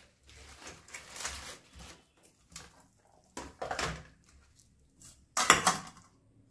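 Fresh pea pods being split open and shelled by hand: short crisp snapping and rustling in a few bursts, the loudest about five and a half seconds in.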